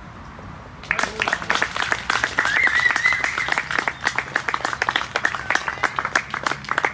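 A small group of spectators clapping, starting about a second in and keeping up to the end, with a brief high-pitched cry above the clapping about two and a half seconds in.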